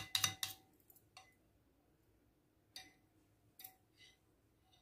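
Metal spoon clinking against the side of a glass bowl while stirring whisked yogurt: two quick ringing clinks at the start, then a few scattered single taps later on.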